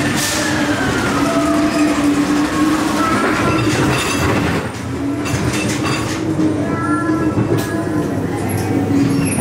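Ghost-train dark ride car rolling along its track: a steady rumble and rattle from the wheels on the rail, with high squeals now and then.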